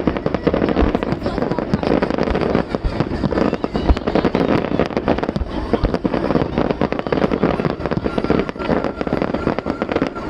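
Fireworks display going off without pause: a dense run of bangs and crackles, with a few deeper booms in the first few seconds.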